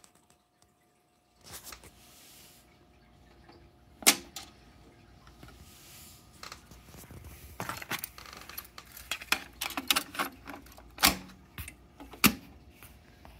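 Clicks and clunks of a Technics 677 cassette deck being loaded by hand: the cassette door opening, a cassette tape going in and the door being pushed shut. One sharp click about four seconds in, then a run of smaller clicks and knocks, with two sharp clacks near the end.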